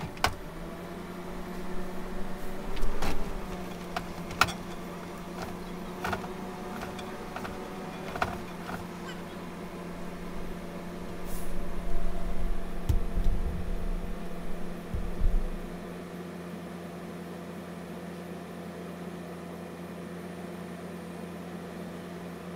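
A steady engine hum from an idling utility service truck, joined by scattered clicks and knocks as service cable is pulled through conduit over the first eight seconds or so. A cluster of low thumps follows in the middle.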